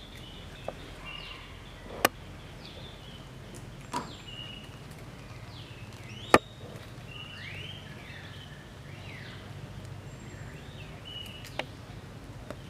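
Outdoor ambience of animal calls: many short high chirps and gliding whistles keep coming. A few sharp clicks break in, the loudest about six seconds in, over a steady low hum.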